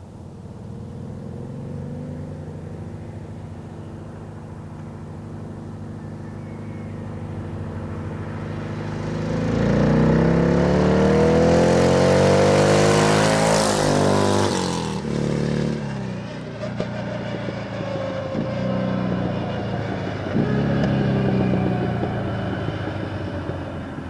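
Car engine with sidepipe exhaust accelerating hard toward and past the listener, its note climbing steeply and loudest about ten to fourteen seconds in, then dropping in pitch and fading; a shorter rev follows near twenty seconds.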